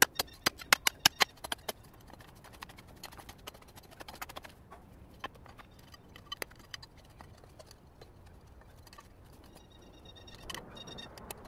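Steel mattock chipping into stony soil beside a boulder: a quick run of sharp clinks in the first two seconds. Then scattered fainter clicks and scrapes of pebbles and dirt being cleared away.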